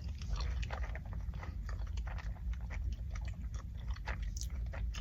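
A person chewing a bacon and egg McMuffin close to the microphone: a steady run of short, irregular wet mouth clicks.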